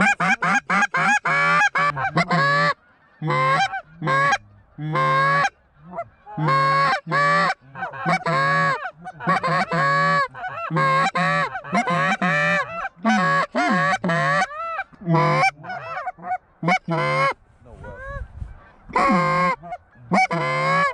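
Goose calls blown by hunters: a rapid run of loud honks and clucks in short bursts with brief pauses, calling to an approaching flock of Canada geese.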